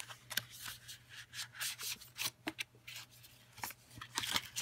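Fingers rubbing and scraping on a cardboard packaging tray, with irregular scuffs and light taps as it is handled.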